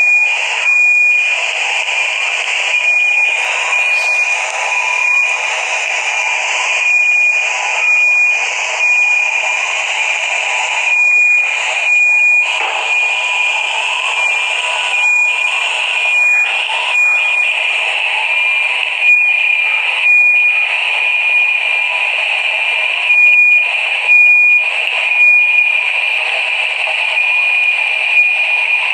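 Electronic alarms sounding after a bomb blast: a loud, steady, high-pitched alarm tone with brief dropouts, a fainter lower tone and a hiss of noise beneath, heard through a phone's microphone.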